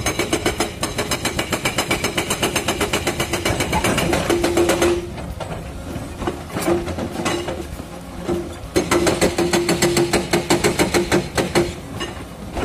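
Excavator-mounted hydraulic breaker hammering rock in rapid, even blows. It stops about five seconds in and starts again a few seconds later.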